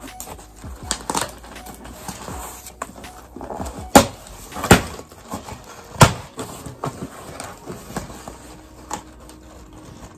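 Cardboard shipping box being pulled open by hand: rustling and scraping of cardboard and packing tape, with three loud sharp rips about four, five and six seconds in.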